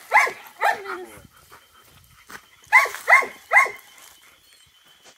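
A dog barking: two barks near the start, then a quick run of three barks about three seconds in.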